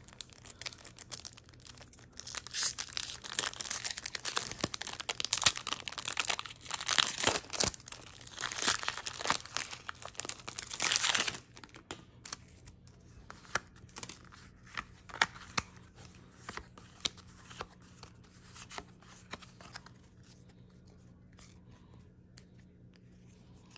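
A foil Pokémon booster pack wrapper is torn open and crinkled for about ten seconds and stops abruptly. After that come quieter, scattered rustles and clicks of trading cards being handled and flipped through.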